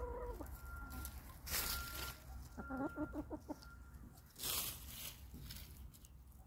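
Domestic chickens clucking, with a quick run of short clucks about halfway through. Two brief rustling noises come just before and after it.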